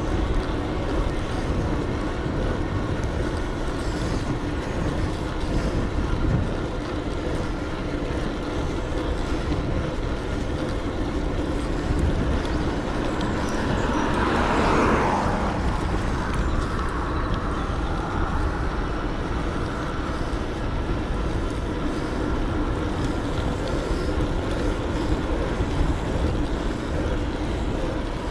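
Wind rushing over the action camera's microphone and road noise from riding an electric bike, with one vehicle passing about halfway through.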